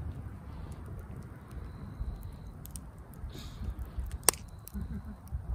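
Wood fire crackling in a fire grill, with scattered small pops and one sharp crack about four seconds in, over a low rumble.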